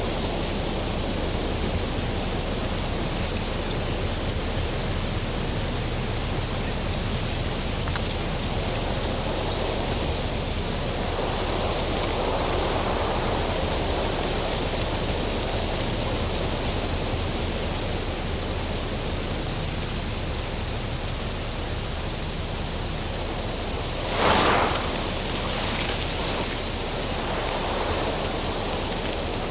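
Steady rustling hiss of tree branches and leaves, swelling and easing a little. Late on comes one brief, louder swish.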